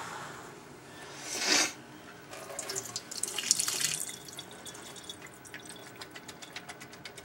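Liquid from a can of chicken being drained into a stainless steel sink, the lid pressed against the meat to squeeze the water out. A short rush of noise about a second and a half in, then trickling and dripping with light ticks that tail off after about four seconds.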